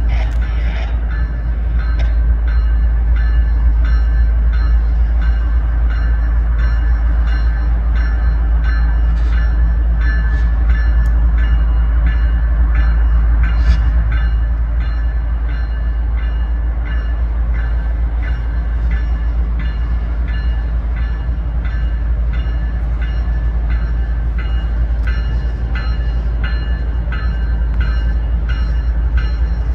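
Diesel locomotives of a slow-moving freight train rumbling low as they approach, with a bell ringing steadily at about two strikes a second.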